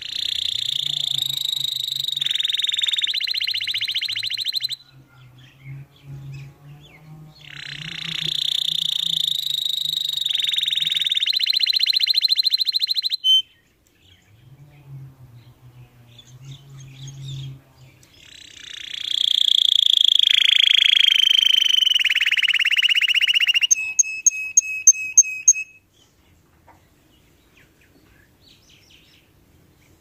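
Domestic canary singing: three long phrases of rapid rolling trills, each several seconds long, with short pauses between them. The last phrase ends in a quick run of sharp, repeated notes.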